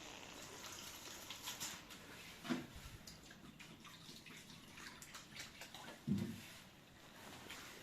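Faint handling noises: scattered small clicks and rustles, with two short dull knocks about two and a half and six seconds in.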